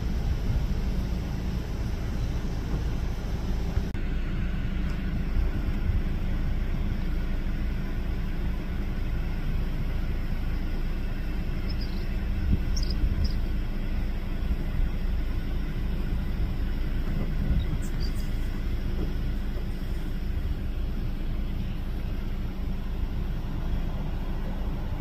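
Steady low rumble of a Boeing 737-800 on the apron during pushback by its tug, heard from across the airfield with wind on the microphone.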